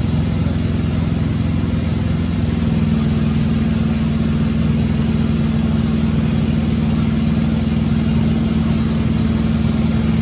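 A steady low mechanical hum, like an idling engine, over a constant hiss; one note of the hum grows firmer about two and a half seconds in.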